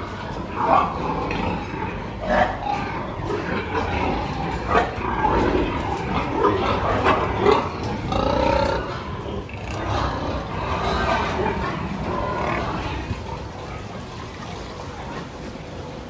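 Many sows in metal crates grunting and squealing, calls overlapping irregularly, thinning out near the end.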